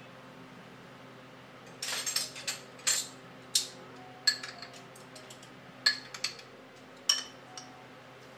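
Ceramic bowl and glass food containers clinking as they are handled and set on a wooden tray: a quick cluster of clinks about two seconds in, then single sharp clinks every second or so.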